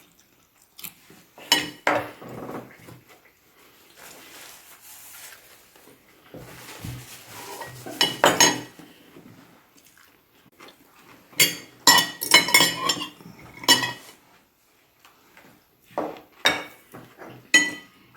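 Cutlery clinking against plates and dishes during a meal, in scattered bursts of clatter.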